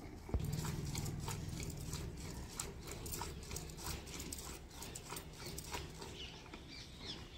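Hand milking: streams of cow's milk squirting into a plastic bucket in short hissing spurts, about two to three a second, with a single knock about a third of a second in.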